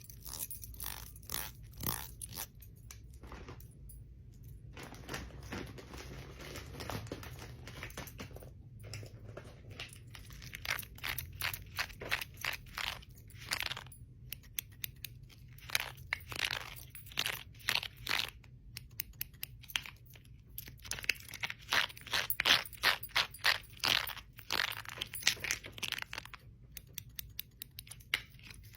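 Metal bangles and rings clicking and clinking against each other in irregular clusters of sharp clicks, denser and louder in the second half.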